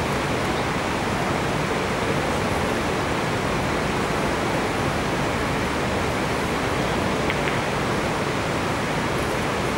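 Steady, even noise of the playing hall's background, loud and unchanging, with two faint ticks about seven seconds in.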